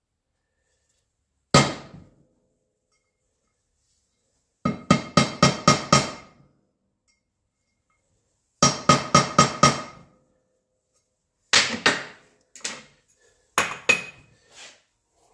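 Ball-peen hammer tapping a punch against an alloy wheel's centre to mark a hole for drilling. There is a single sharp metallic strike, then two quick runs of about six ringing taps each, then a few scattered taps near the end.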